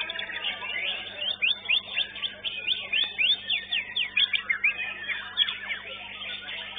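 White-rumped shama (murai batu) singing: a fast run of sharp, downward-sweeping whistled notes, loudest from about one to five and a half seconds in.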